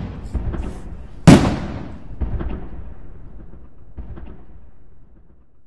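A firework rocket bursting with a single loud bang about a second in, echoing and dying away over the next second or two, followed by a few faint pops and crackles.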